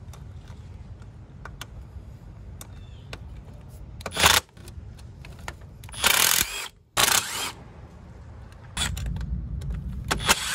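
Milwaukee 12-volt cordless power tool running in several short bursts, backing out the bolts of the intake manifold runner control solenoid bracket. A longer, lower run comes near the end.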